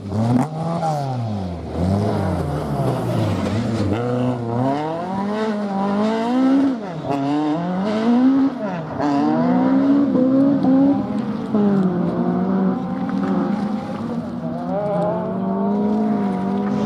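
Rally car engine revving hard through a stage. Its pitch climbs and falls again and again as the driver changes gear and lifts off and on the throttle.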